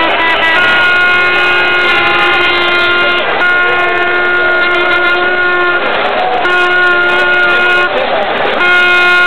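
Supporters' handheld horns blowing long, steady notes of about two to three seconds each, broken by short gaps, over general crowd noise.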